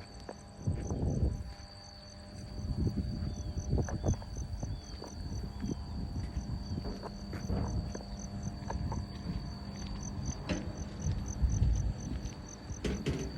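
Wind gusting and buffeting against the microphone in repeated low rumbles ahead of a storm, over insects chirping steadily in a high pulsed rhythm of about three chirps a second with a continuous high trill.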